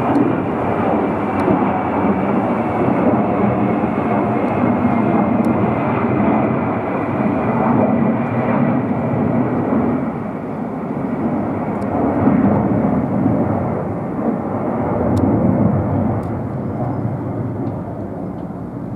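Ilyushin Il-76TD's four Soloviev D-30KP-2 turbofan engines as the jet transport flies low past: a loud, steady jet rumble with a high whine that falls slowly in pitch over the first several seconds, then eases a little in loudness near the end as it moves away.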